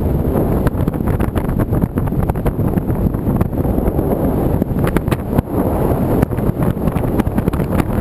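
Rushing airflow buffeting the microphone of a camera mounted on an R/C glider in flight: a loud, steady, gusty wind roar with frequent brief crackles.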